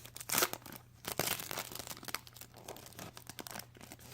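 Trading-card pack wrapper being torn open and crinkled, in irregular rustling bursts that thin out over the last couple of seconds.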